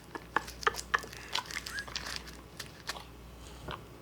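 Faint scattered clicks and small wet mouth noises of a person with a mouthful of hard cough drops, the candies clacking against the teeth as they are sucked and shifted about. A brief high chirp comes about halfway through.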